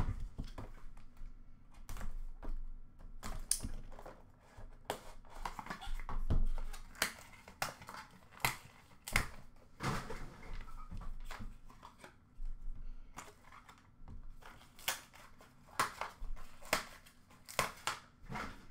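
Hockey card box being opened and its contents handled: crinkling and tearing of wrapping, with many short clicks and knocks of the cardboard box and hard plastic card cases.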